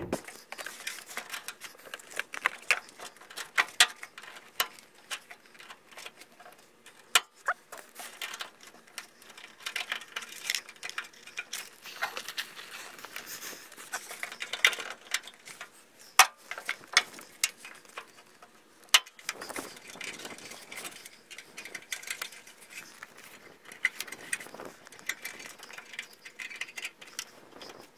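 Irregular light clicks, taps and small rattles of hands handling parts around a car door hinge and its newly fitted hinge spring.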